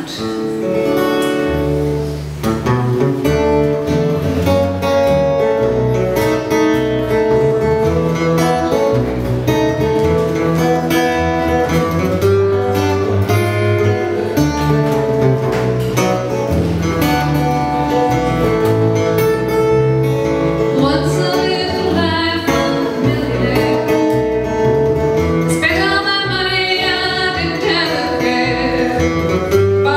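Acoustic guitar fingerpicking a country-blues accompaniment over an electric bass guitar line. Roughly two-thirds of the way through, a woman's singing voice comes in over the instruments.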